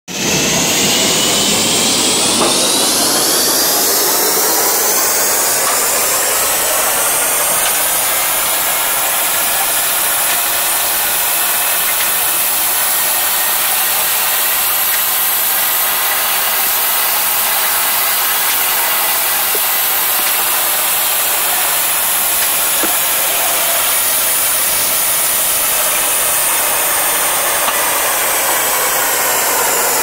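Band sawmill cutting through a large mango wood log: a steady whining machine hum with a strong high hiss. Its pitch rises slowly over the first several seconds and sinks gently near the end.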